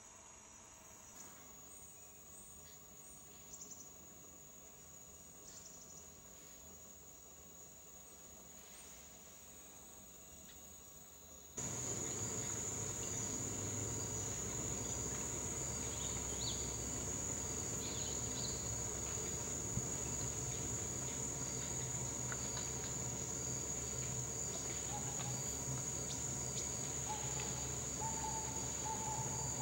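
Forest insect chorus: a steady high-pitched drone that gets suddenly louder about twelve seconds in, with scattered short chirps over it.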